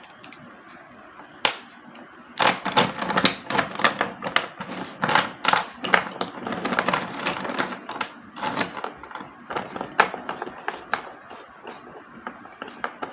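Slate pencil being bitten and chewed: a single sharp snap about a second and a half in, then rapid, crisp crunching that thins to scattered cracks and dies away near the end.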